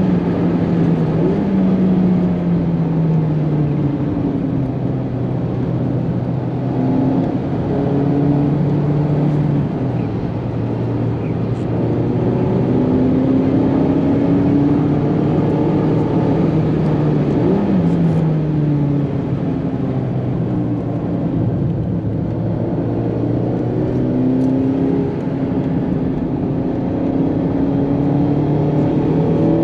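Mazda MX-5 ND1's four-cylinder engine heard from inside the cabin at track pace, its note rising through the revs and dropping back at each gearshift or lift, with a quick rev blip about 18 seconds in. Underneath runs a steady rush of road noise from tyres on a soaked track.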